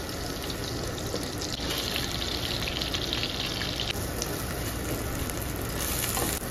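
Drained rice sizzling in hot melted butter in a pot as it is stirred with a wooden spoon to brown it; a steady hiss that turns brighter about a second and a half in.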